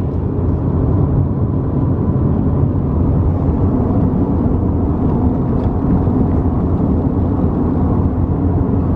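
Steady, loud low rumbling noise with no clear pitch.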